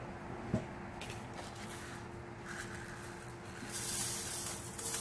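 Small clear grains poured from a plastic tub onto a metal mesh sieve and falling through into a metal pan, starting near the end as a steady hiss. It is the sound of sifting the fine grains from the big pieces.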